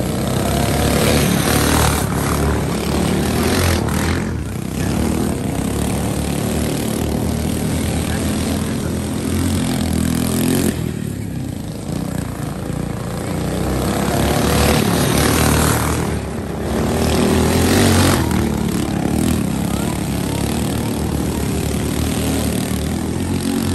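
Small go-kart engines running as karts race around a dirt track, the engine note rising and falling as they accelerate, slow for corners and pass by.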